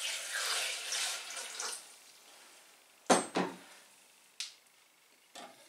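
Water poured from a glass carafe into the steel bowl of a cooking robot, splashing steadily and fading out about two seconds in. Then the glass carafe is set down on the worktop with two quick knocks, followed by a lighter click.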